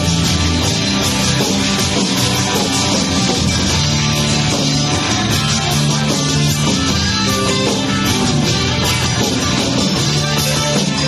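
Live rock band playing loud: electric lead guitar, acoustic rhythm guitar, bass guitar and drum kit together, with no break.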